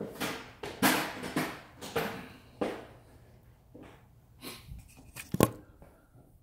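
Handling noises from a small plastic keypad unit: a run of irregular clicks, rustles and knocks, with one sharp click about five and a half seconds in.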